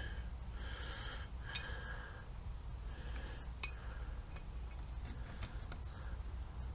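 A few faint, sharp clicks and ticks of small parts and tools being handled during hand work on an outboard motor's lower unit, over a low steady hum.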